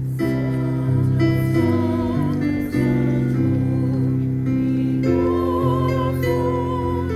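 Slow communion hymn played on acoustic guitar, with sustained chords and a sung melody.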